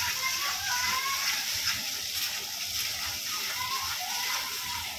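Spice paste and ground spices frying in hot mustard oil in a kadai with a steady sizzle, stirred with a spatula.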